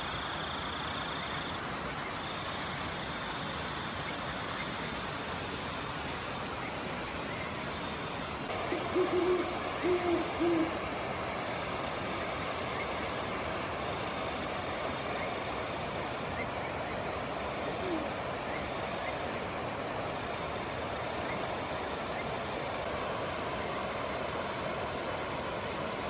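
An owl hooting, three short low hoots about nine to ten and a half seconds in, over a steady high-pitched chirring of night insects.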